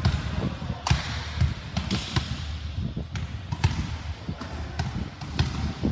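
Basketball dribbling and bouncing on a hard court: an uneven run of thumps and sharp smacks.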